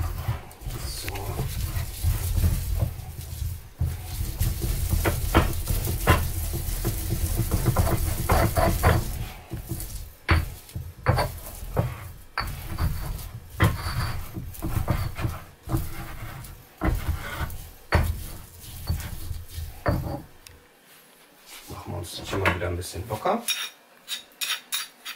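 Stone pestle grinding and pounding chives into a pesto paste in a stone mortar: a low grinding rumble with repeated knocks of stone on stone, ending in a quick run of sharp knocks.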